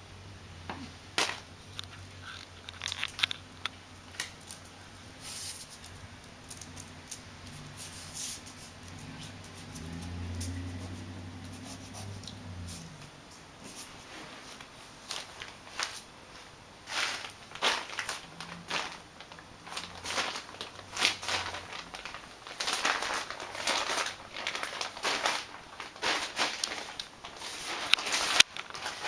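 Plastic stencil sheet and painter's tape being handled against a wall: crinkling, rustling and tearing, with sharp snaps and taps, growing busier in the second half. A low hum underneath stops about halfway through.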